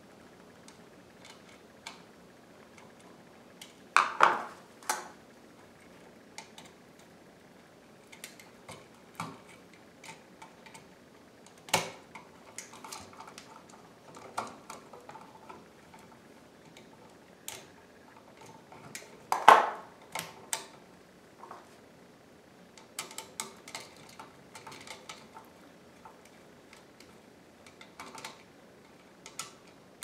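Scattered sharp metallic clicks and taps of needle-nose pliers and a screwdriver on an electrical outlet's terminal screw, as a copper wire loop is squeezed around the screw and the screw is tightened down. The loudest clicks come about 4, 12 and 19 seconds in, with runs of small ticks near the end.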